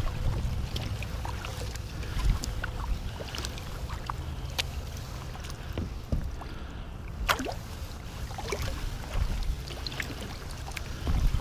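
Sea kayak being paddled on flat calm water: small splashes, drips and ticks from the paddle blades and hull, scattered and irregular, over a steady low rumble.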